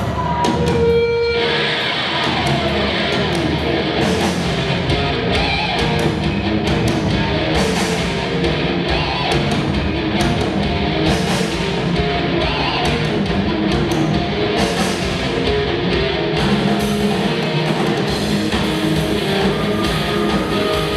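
Live rock band playing loud hard rock: electric guitars, bass guitar and drum kit together.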